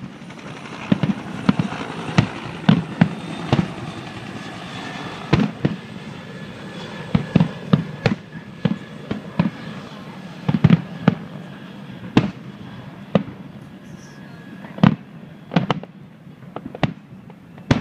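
Aerial fireworks shells bursting: dozens of sharp bangs at irregular intervals, some in quick clusters of two or three, over a steady low hum.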